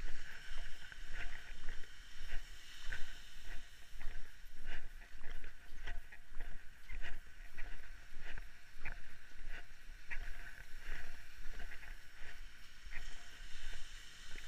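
Footsteps crunching on coarse black beach sand and dry debris, about two steps a second, over a steady hiss of surf and low wind rumble on the microphone.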